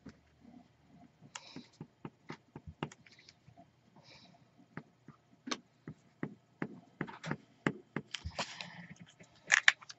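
Scattered light clicks, taps and short brushing sounds of a Tombow liquid glue bottle and a small piece of cardstock being handled on a cutting mat as glue is dabbed onto the card, with a couple of sharper clicks near the end.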